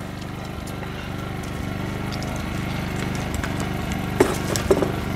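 A small engine running steadily with an even, fast pulse, with a few light clicks about four seconds in.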